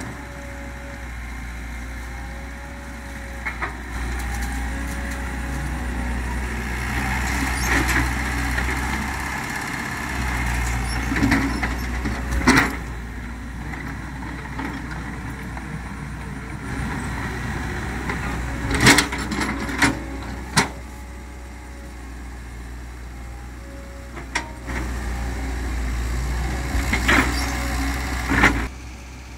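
Komatsu PC130 excavator's diesel engine running steadily, swelling in level at times as it works, with several sharp clanks mixed in.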